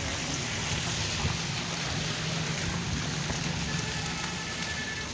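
Heavy rain falling in a steady hiss, with a vehicle engine running low and steady underneath.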